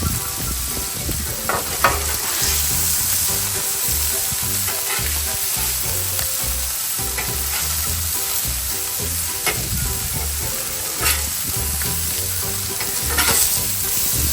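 Ground beef sizzling on a Blackstone flat-top griddle, searing into a crust, with a metal spatula clicking and scraping on the steel plate a few times.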